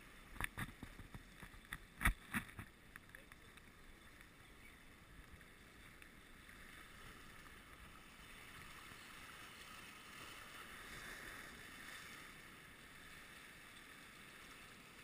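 Fishing rod and reel being handled during the reel-in: a few sharp clicks and knocks in the first three seconds, the loudest about two seconds in, then only a faint steady hiss.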